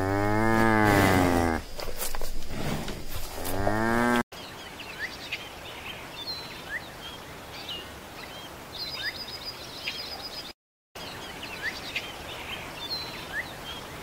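A cow mooing, two long low calls. After a sudden cut comes a quieter stretch of scattered short high bird chirps, with a brief rapid trill near the end.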